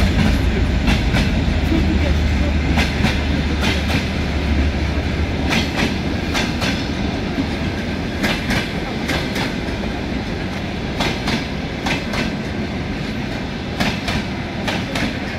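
Passenger coaches of an arriving train rolling past, their wheels clicking over rail joints in pairs and small groups. A heavy low rumble fades out over the first few seconds, and the whole sound slowly grows quieter.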